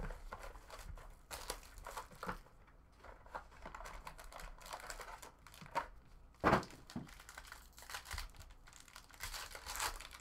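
Crinkling and rustling of a foil card pack wrapper and plastic card sleeves being handled, in irregular bursts, with a single louder thump about six and a half seconds in.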